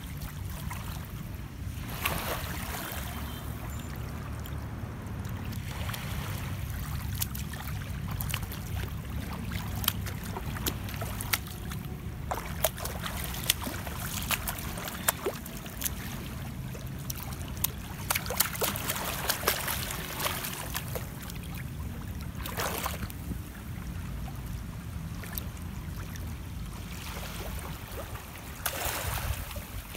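Small sea waves washing and lapping over a rocky, sandy shoreline, swelling into a hiss every few seconds, with a steady low rumble of wind on the microphone and scattered sharp clicks.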